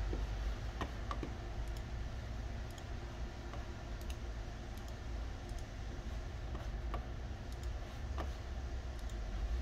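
Computer mouse clicking, a dozen or so sharp clicks at uneven spacing as windows are opened and closed, over a steady low hum.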